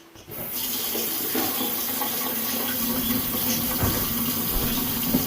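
Kitchen sink faucet turned on about a third of a second in, water running steadily into the sink, run to test a newly vented drain.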